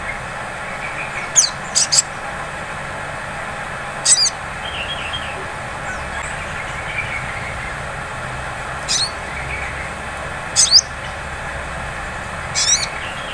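Female sunbird (sogon) giving short, sharp, high chirps at irregular intervals, two of them in quick succession, with softer twittering between. This is the ngleper call of the female, used to draw a male into song.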